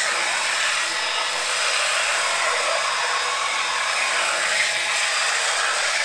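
Ryobi cordless belt sander running steadily with an 80-grit belt, sanding a wooden scaffold plank: an even, unbroken hiss of the belt on the wood.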